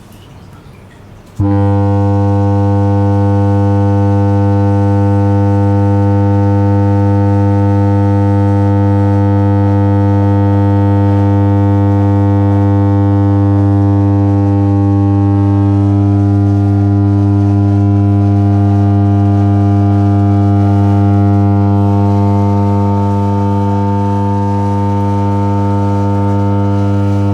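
Loud, steady low test tone of about 100 Hz with many overtones, played at very high volume through speakers. It switches on abruptly about a second and a half in and holds without a break.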